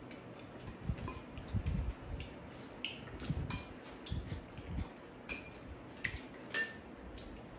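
Spoons clinking and scraping against bowls of cold soup: a scatter of separate short clinks, often a second or less apart, with soft eating sounds between them.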